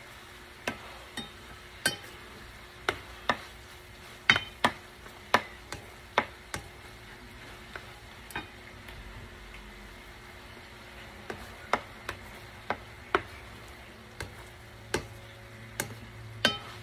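A spatula stirring shrimp in a stainless steel frying pan, knocking and scraping against the pan at irregular moments, over a faint sizzle of the shrimp cooking. The knocks thin out for a few seconds midway, then pick up again.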